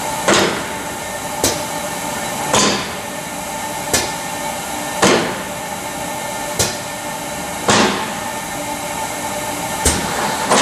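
Trumpf TruLaser Tube 5000 tube laser cutter's roller supports in the loading table being raised and lowered over a steady machine hum. The actuators clack and clunk about every second, alternating a short sharp clack with a longer, duller clunk.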